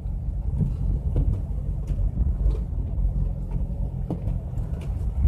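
Nissan Pathfinder climbing a snow-covered road, heard from inside the cabin: a steady low engine and tyre rumble with a few faint ticks.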